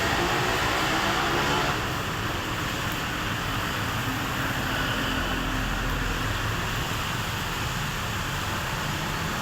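Steady street-traffic noise with a low engine hum.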